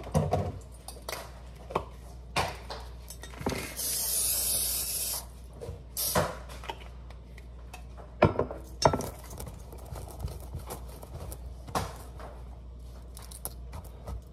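Kitchen handling sounds: scattered knocks and clinks of utensils and dishes. About four seconds in there is a hiss lasting about a second and a half.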